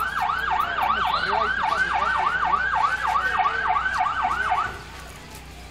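Fire engine siren on a fast yelp, its pitch sweeping up and down about four times a second, then cutting off suddenly near the end.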